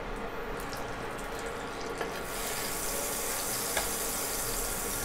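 Butter melting and sizzling in a hot nonstick tawa, the sizzle turning brighter and louder about two seconds in, with a couple of light taps of a spatula spreading it across the pan.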